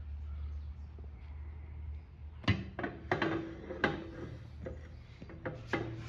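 Sharp knocks and clatter of tools against a small dirt bike wheel rim as a tight tire and inner tube are worked onto it, starting about two and a half seconds in, over a steady low hum.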